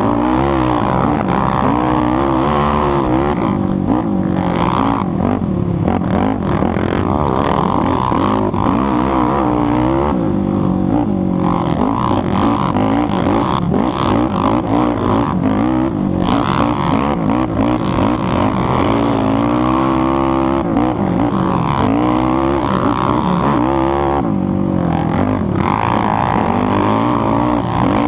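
Yamaha YFZ450R quad's big-bore 478 cc single-cylinder four-stroke engine with a DASA exhaust, revving hard under load through the sand. Its pitch climbs and drops over and over as the throttle is worked and gears change.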